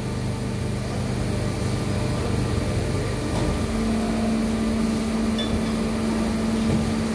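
Plastic injection moulding machine running a moulding cycle: a steady mechanical hum with a low tone that changes, about three and a half seconds in, to a higher steady tone as the machine's drive works under load.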